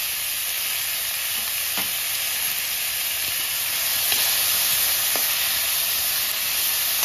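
Onions and tomatoes sizzling steadily in hot oil in a metal kadhai, with garlic paste just added. They are stirred with a perforated metal spoon that knocks lightly against the pan a few times.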